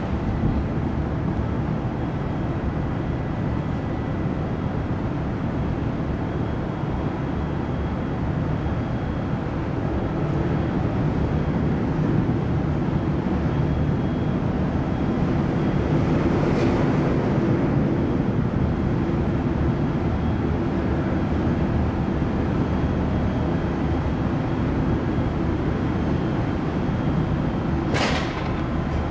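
Steady low rumble of the car ferry Esan 2000's engines and machinery heard from its deck while it berths, growing a little louder about ten seconds in. Two brief swishes cut across it, one past the middle and one near the end.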